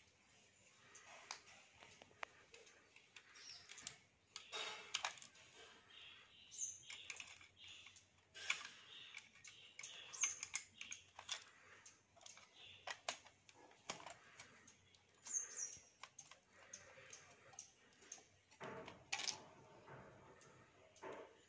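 Faint, irregular clicks, taps and scrapes of the steel laminations of an old step-up transformer's core as they are handled and worked loose with fingers and pliers.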